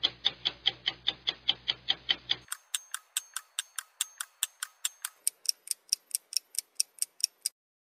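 Clock ticking steadily, about four ticks a second, stopping shortly before the end.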